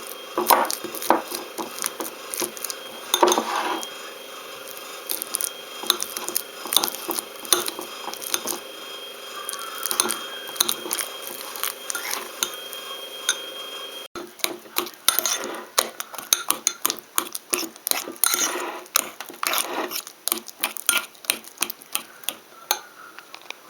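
Fork mashing a peeled banana into a pulp in a dish: the metal tines tap and scrape against the dish in quick, irregular clicks.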